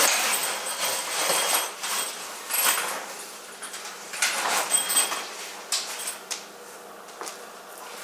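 Tent fabric rustling and swishing in uneven swells as the annex walls of a rooftop tent are pulled into place and hung, with a few short clicks or taps.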